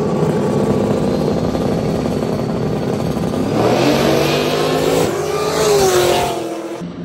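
Drag-racing cars' engines, a Cadillac CTS-V's V8 the nearest, held at steady high revs on the start line. About three and a half seconds in they launch, the engine pitch climbing and dipping through gear changes as they pull away.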